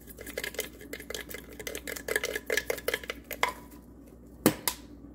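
A garlic-and-parsley seasoning jar shaken and tapped over a bowl: a quick run of light clicks and rattles for about three and a half seconds, then one sharp knock near the end.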